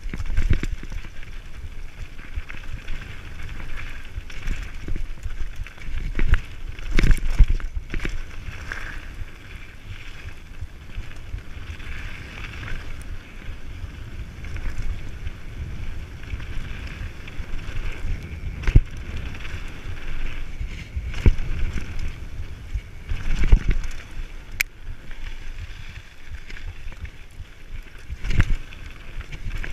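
Mountain bike riding fast down a dirt and gravel trail: tyres rolling and the frame rattling, with wind rushing past. A handful of sharp knocks stand out where the bike hits bumps.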